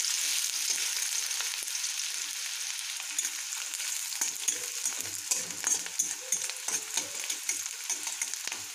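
Chopped onions sizzling in hot mustard oil in a kadai, stirred with a spatula that scrapes and taps against the pan. The sizzle is steady and eases off a little, and the spatula strokes come thicker in the second half.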